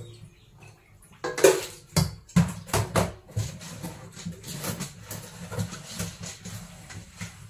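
Aluminium bowls knocking and clattering against a stainless-steel sink, with the sharpest clanks about a second and a half in, then a run of smaller irregular clinks and scrapes as a bowl is rinsed.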